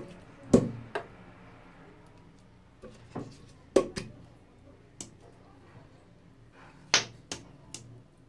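A toothbrush's black rubbery base knocking and clicking against a ceramic washbasin rim as it is set down and picked up: about nine sharp knocks at irregular intervals, some in quick pairs.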